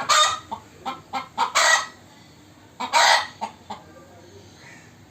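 Chickens clucking and squawking: a run of short, loud, raspy calls, with longer squawks about a second and a half in and again about three seconds in, followed by two short clucks.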